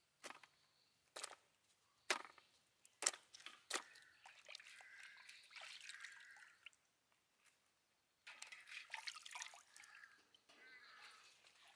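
Water dripping and splashing into a metal basin as cucumbers are rinsed by hand, with several sharp splashes in the first four seconds and a short pause about two-thirds of the way through.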